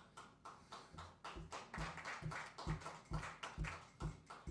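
Vintage Rhythm Ace drum machine playing its rock'n'roll preset. Light ticks come first, then a steady pattern of low kick thumps about two a second, with hissy hi-hat and snare hits between, from about a second in.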